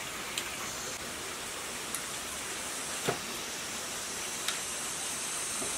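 Steady background hiss with a few light clicks and one soft knock about three seconds in, as copper coils are worked by hand into the slots of a generator stator.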